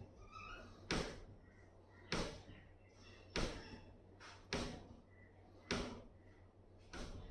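Rhythmic forceful exhalations through the nose during a yoga breathing exercise. There are about six sharp breaths out, one every 1.2 seconds or so, each cutting in suddenly and fading quickly.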